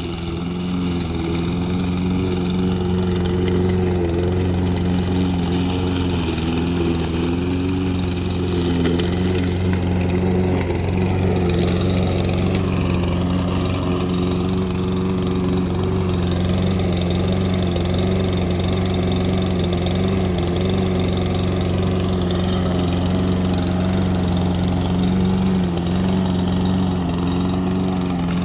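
Saber Edge walk-behind lawnmower's Briggs & Stratton OHV engine running at a steady speed.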